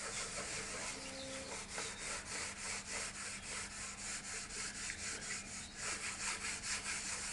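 Wood being sanded by hand, with quick, even back-and-forth strokes, about four or five a second.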